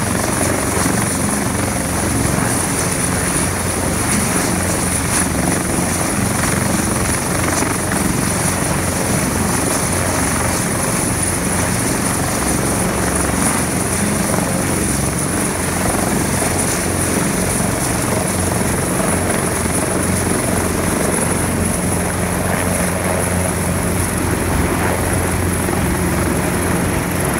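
Airbus H225 (EC225LP) twin-turbine helicopter hovering close overhead and lifting a slung load. Its rotor and engines run loud and steady, with a thin high turbine whine over the rotor noise.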